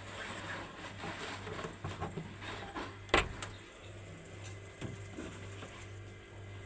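Compressor of a Samsung 181-litre single-door fridge running with a steady low hum, now starting on a newly fitted relay and overload protector after failing to run. There is a sharp click about three seconds in.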